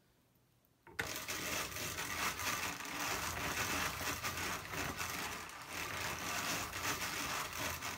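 Hand-cranked drum carder spun fast, starting about a second in: a dense, steady rattling of the turning drum and its carding teeth working through wool, blending fibre into a batt.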